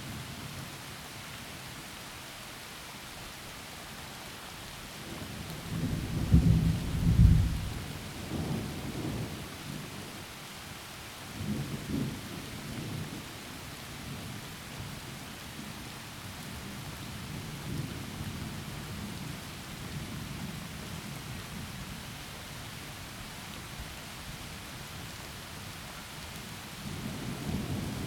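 Steady heavy rain with rolling thunder: a loud rumble swells about six seconds in, followed by fainter rumbles and a new roll building near the end.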